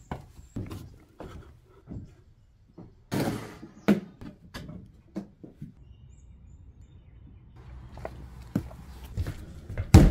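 Scattered knocks and thumps of gear being handled, with a quiet stretch in the middle. A heavy thump near the end as a plastic cooler is set down on a wooden floor.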